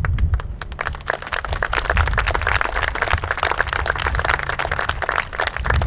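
Audience applauding, many hands clapping, fullest in the middle and thinning toward the end, over a low steady hum.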